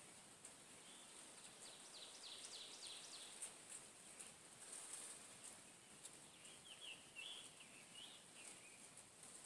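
Near silence with faint bird chirping: a short run of quick chirps about a second and a half in, and another about six and a half seconds in.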